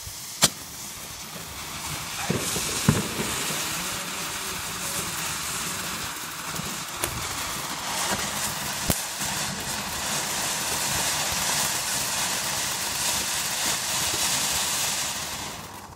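Several small Vulcan Toverfonteinen firework fountains spraying sparks with a steady hiss that builds over the first few seconds. There are a few sharp cracks, the loudest about half a second and three seconds in.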